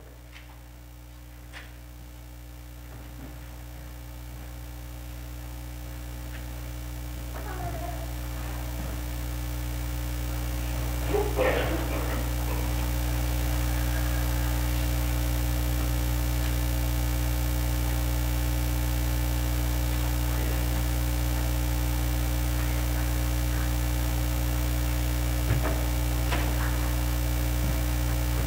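A steady low electronic drone swells up over roughly the first twelve seconds, then holds level.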